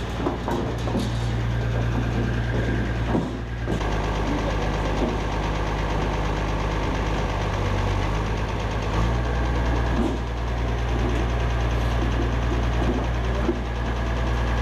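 Truck engine idling steadily, with its note shifting slightly a little under 4 seconds in and again around 9 seconds.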